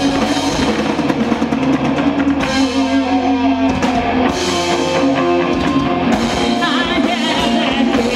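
Live rock band playing loudly: distorted electric guitar, bass and drum kit. A woman's singing voice comes in near the end.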